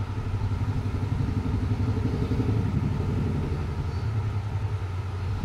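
A steady low mechanical hum, swelling in the middle and easing off toward the end.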